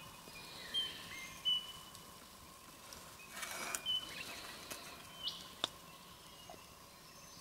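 Birds calling with short, high chirps and whistles. About three and a half seconds in, a brief hiss of coffee being poured from a metal pot into a metal mug, and a single sharp clink a couple of seconds later.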